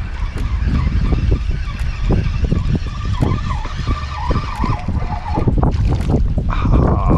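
Wind buffeting the microphone with a heavy rumble and gusty thumps, and a faint wavering squeal coming and going.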